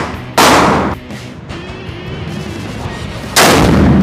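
Two unsuppressed rifle shots from a 300 PRC Seekins Havak PH2 bolt-action rifle, the first about half a second in and the second near the end, each ringing on with a long echo in an indoor range. Background music plays under them.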